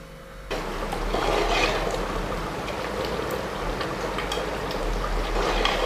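Thick beef curry bubbling in an open aluminium pressure cooker, a steady simmering hiss with occasional light clicks of a steel spoon stirring against the pot. It starts about half a second in.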